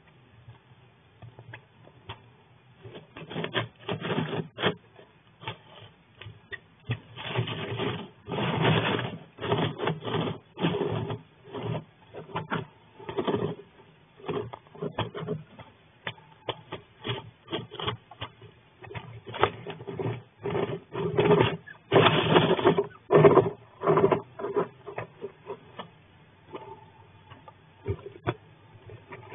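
A flying squirrel scratching and rummaging in loose wood shavings on the floor of a wooden nest box: irregular bursts of rustling and scraping with sharp clicks between them.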